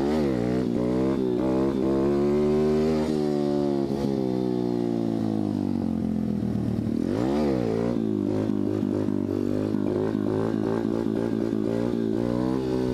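125cc dirt bike engine revving under throttle while riding. It climbs in pitch at the start, holds, then drops back. About seven seconds in comes a sharp rev up and down, followed by uneven, choppy throttle and a rise again near the end as the front wheel lifts for a wheelie.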